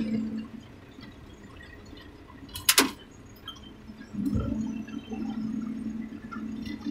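John Deere tractor engine running, heard inside the cab: its steady drone drops away after the first half-second, with a short sharp clatter about three seconds in, then swells back up about four seconds in and runs steadily again.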